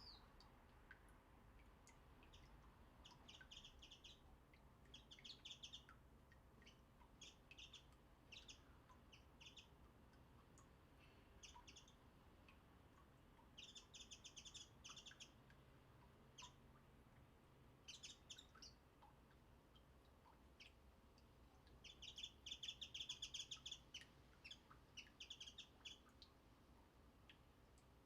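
Small wild birds chirping faintly in short runs of quick, high chirps. The runs come every second or two with gaps between them, and are busiest about three quarters of the way through.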